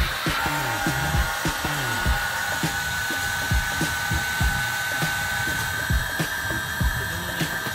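Electric air pump running steadily as it inflates an inflatable sofa, a constant motor whine whose pitch creeps up slightly as the sofa fills.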